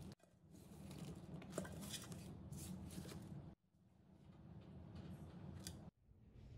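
Faint rustling of cut beet leaves and stems being scooped by hand off a wooden cutting board into a stainless-steel bowl, in three short pieces that each cut off suddenly.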